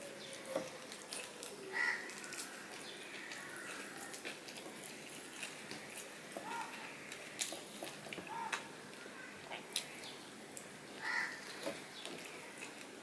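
Fingers picking at a crisp fried hilsa fish and working it into rice on a plate: scattered soft clicks and taps of fingers against the plate.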